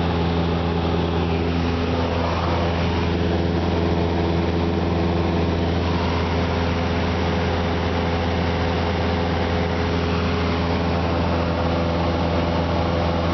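Cessna 172's piston engine and propeller droning steadily in cruise flight, heard from inside the cabin. The tone shifts slightly about two to three seconds in.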